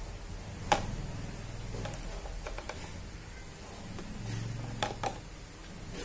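Small clicks and taps from handling the disassembled parts of a cordless drill-driver while cleaning them over a plastic tub of oil. One sharp click comes a little under a second in, a few lighter ones follow, and two more come close together near the end, over a low steady hum.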